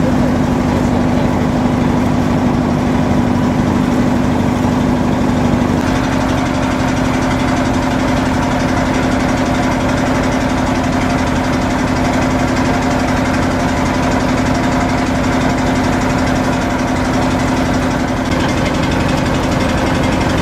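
Boat engine running steadily with a constant hum; its pitch steps up slightly about six seconds in.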